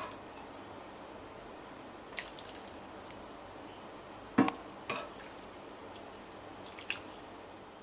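A serving utensil knocking and clinking against the saucepan and bowl a few times as soup is dished out, with faint dripping. The two loudest knocks come a little past the middle.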